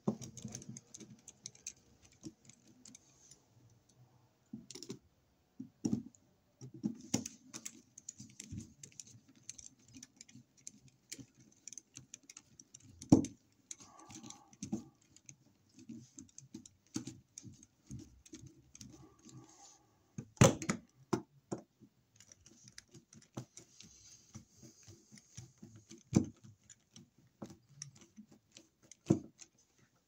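Irregular small clicks and taps of a screwdriver working on a wall receptacle's metal screws and yoke in its electrical box, with a few sharper knocks.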